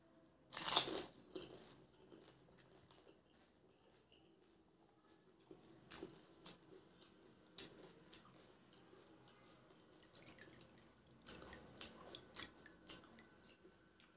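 Pani puri being eaten: a loud crunch as the crisp, water-filled puri shell is bitten about half a second in, then quieter chewing with scattered clicks, and another run of crunching and chewing near the end.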